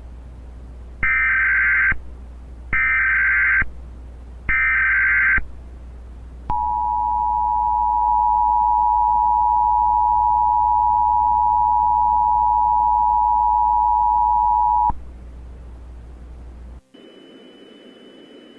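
Emergency Alert System tones, synthesized: three short bursts of warbling SAME header data, then the two-tone attention signal held steady for about eight seconds. A low hum runs under it and cuts out near the end, leaving a faint high whine and hiss.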